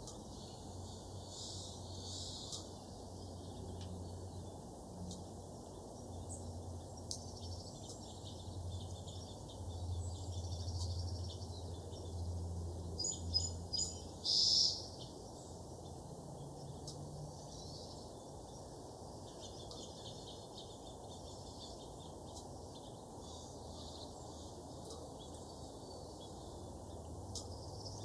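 Small songbirds chirping and twittering on and off, with a quick run of repeated chirps and the loudest call about halfway through. Underneath is a steady low hum of background noise.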